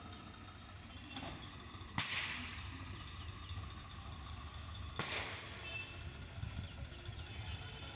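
Tractor's diesel engine running with a low, steady rumble, broken by two sharp cracks about three seconds apart.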